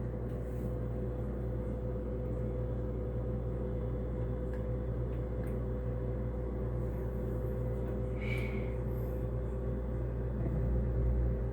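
Dishwasher running with a steady motor hum and low rumble, with a brief high chirp about eight seconds in.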